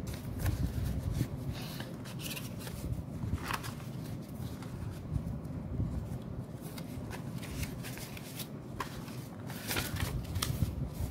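Malaysian ringgit banknotes rustling and flicking as a bundle is leafed through and counted by hand, with irregular crisp snaps of paper.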